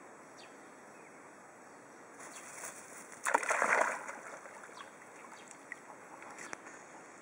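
Yorkshire terrier rustling through grass and splashing into swamp water about three seconds in, then quieter water sounds as it swims off.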